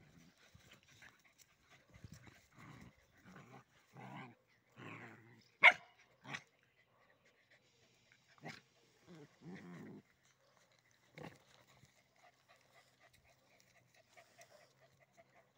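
Mixed-breed dogs play-fighting, growling in short bouts, with one loud sharp yelp about six seconds in and a shorter one just after it.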